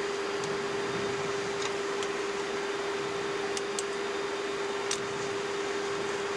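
Airbus A330 flight-deck background noise while taxiing: a steady hiss of air conditioning and avionics cooling with a constant mid-pitched electrical hum, and a few faint clicks.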